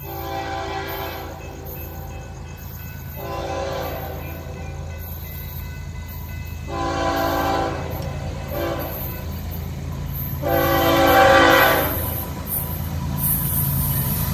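Nathan K5HL five-chime air horn on an approaching FEC ES44C4 locomotive, sounding a series of blasts that end in the grade-crossing pattern of long, long, short, long. It gets louder as the train nears, and the last long blast is the loudest. A steady low rumble of the locomotive runs underneath.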